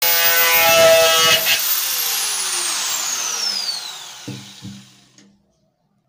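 Angle grinder with four nails fitted to its spindle running at full speed and boring through the bottom of a plastic tub, then switched off, its motor whine falling steadily as it spins down. Two knocks about four seconds in as the grinder is set down on the concrete floor.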